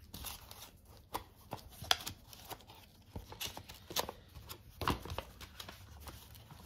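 Light handling noise: scattered small clicks and soft paper rustling, a little stronger about two, four and five seconds in.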